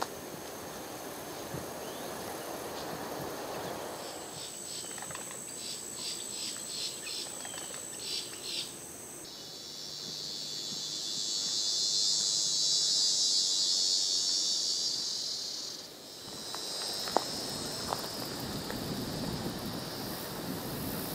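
Insects calling in the woods: a high pulsing trill at first, then a louder, dense high buzz for several seconds in the middle that starts and stops abruptly, followed by a softer buzz.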